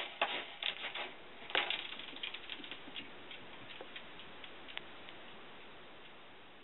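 A cat scratching and stepping in a litter box of pellet litter to cover its droppings; the pellets rattle in quick clusters of clicks for about three seconds, then only a few scattered ticks.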